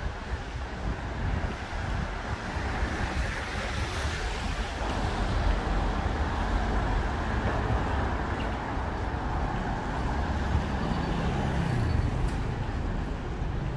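City road traffic: motor vehicles running past with a steady rumble, which grows heavier about a third of the way in.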